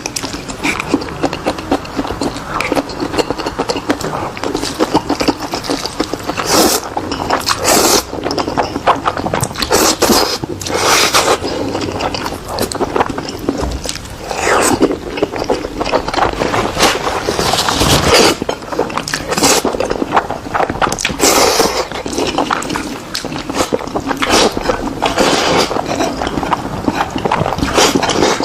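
Close-miked eating of spicy instant noodles: continuous wet chewing and mouth clicks, broken by several longer, louder slurps.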